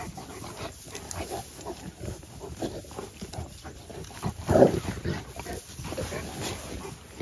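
Cane Corso dogs vocalizing as they roll and play in loose pine straw, with the straw rustling under them. One louder sound comes about four and a half seconds in.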